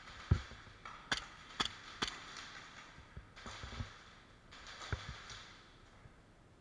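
Scattered sharp snaps of airsoft gunfire, about six at uneven intervals, the loudest about a third of a second in, with rustling from the player's gear and movement between them.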